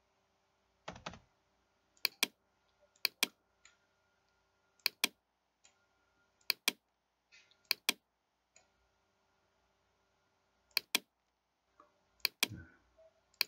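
Computer mouse clicking: about eight pairs of sharp clicks, a second or two apart, as points of a curve are picked and dragged in drafting software.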